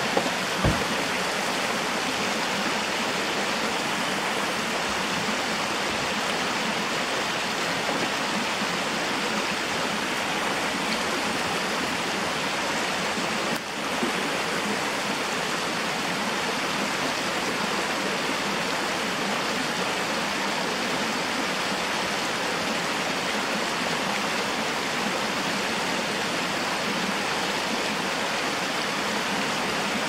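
Mountain stream running over rocks and a small cascade: a steady rush of water. A short thump just under a second in, and a brief dip in the sound about halfway through.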